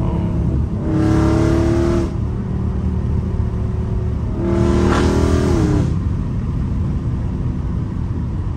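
Catless Dodge Charger Scat Pack's 6.4-litre HEMI V8 exhaust heard from inside the cabin at highway speed. It makes two loud surges in revs, about a second in and again around four and a half seconds in, and the revs drop away sharply near six seconds.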